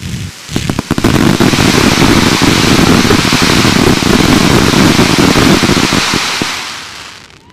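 Category F2 consumer fireworks firing as a finale barrage: about a second of separate sharp bangs, then a dense continuous crackling and banging that fades away near the end.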